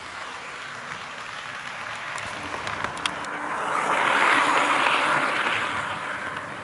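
HO-scale model train, an EF81 electric locomotive hauling a passenger car and container wagons, running on KATO Unitrack sectional track: a steady rolling hiss of the wheels and motor that swells as the train passes close by about four seconds in, then fades. A few light clicks come shortly before the peak.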